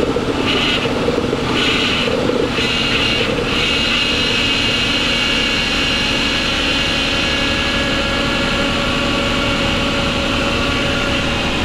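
Nissan Maxima's 3.5-litre VQ V6 idling while its power steering pump whines high and steadily. The whine pulses a few times in the first three seconds, then holds. The pump is low on fluid and drawing air in a freshly refilled system that has not yet been bled.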